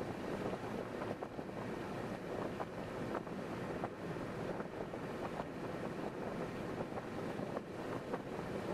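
Steady road and wind noise of a car driving at highway speed, with faint light ticks now and then.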